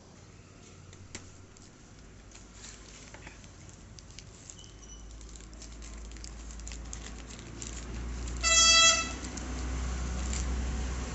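Plastic packaging crinkling and rustling as a neckband earphone's pouch is opened. About eight and a half seconds in, a vehicle horn honks once for about half a second, the loudest sound, over a low traffic rumble that builds through the second half.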